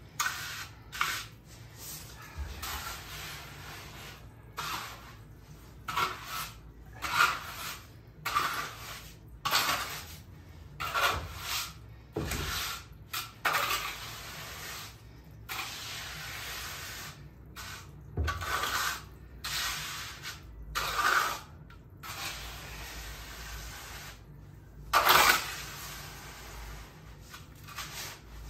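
Hand trowel scraping and smoothing wet concrete: an irregular series of short swishing scrapes, the loudest near the end.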